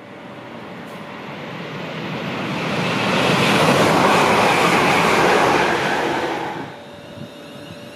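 London Midland Class 350 Desiro electric multiple unit passing through at speed: the wheel, rail and air noise swells to a peak about four seconds in, then falls away sharply after about six and a half seconds as the train clears.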